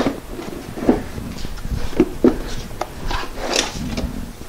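Plastic compressor housing being handled and fitted together: several light knocks and clatters, with a stretch of plastic rubbing and scraping on plastic about three seconds in.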